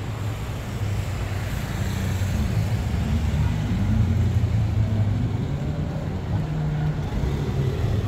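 City street traffic: a motor vehicle's engine running close by with a low, steady hum, slowly getting a little louder toward the middle.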